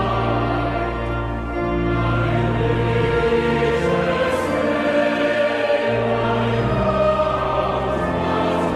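Choral music: a choir singing sustained chords over a low bass line, the chords changing every second or two.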